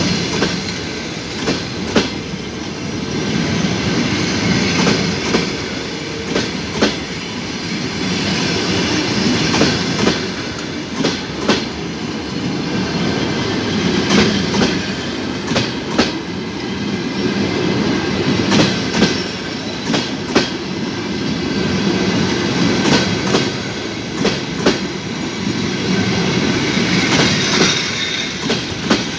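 Passenger coaches rolling past close by: a steady rumble of wheels on rails, with sharp clacks, often in close pairs, as each bogie's wheels cross the rail joints.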